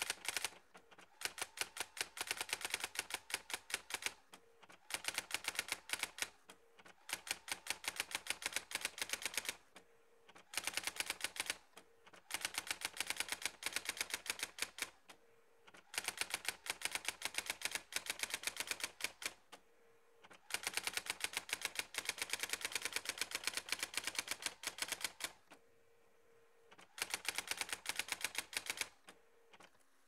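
Brother GX-6750 electronic daisy wheel typewriter printing text, a run of rapid, evenly spaced print clicks for each line. The runs are broken by short pauses between lines, each with a brief hum.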